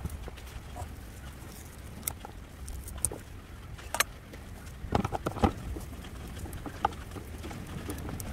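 Scattered light clicks and taps from handling succulent cuttings and pots, over a low rumble of wind on the microphone.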